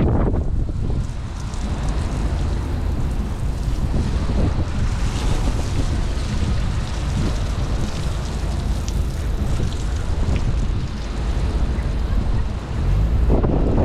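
Wind buffeting the microphone: a loud, continuous low rumble that rises and falls with the gusts.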